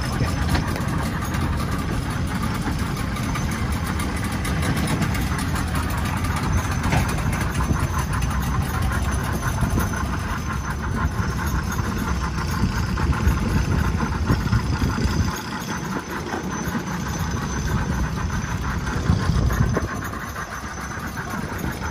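Twin outboard motors running at low speed as the boat manoeuvres, a steady low engine sound that dips briefly about fifteen seconds in and eases again near the end.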